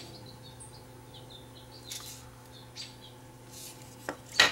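Plastic housing parts of a small electronic pendant being handled: soft rubbing noises, then two sharp plastic clicks near the end, the second the loudest. Faint high chirps sound in the first second and a half, over a steady low hum.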